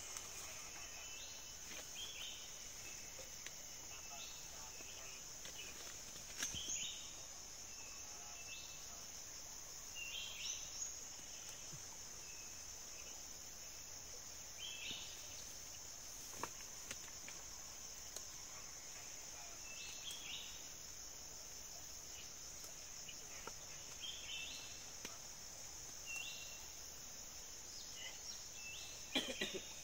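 Steady high-pitched drone of forest insects, cicadas or crickets, with short chirps every few seconds. A few sharp clicks or snaps, the loudest near the end.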